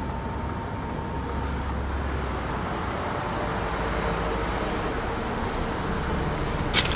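Audi A8 4.2 FSI V8 idling: a steady low hum with no change in revs.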